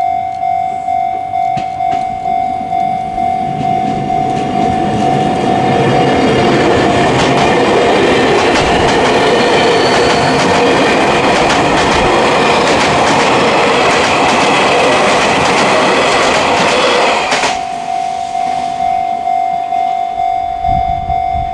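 Tokyu 3000 series electric train passing over a level crossing: running noise with wheel clicks over the rail joints builds up, stays loud for about ten seconds, then cuts off suddenly as the last car clears. A Japanese level-crossing warning bell rings in a steady repeating pulse throughout, heard plainly before and after the train.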